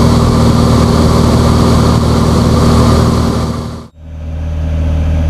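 Cessna 182's piston engine and propeller droning steadily in cruise flight. The sound cuts out briefly about four seconds in and comes back duller, as heard from inside the cabin.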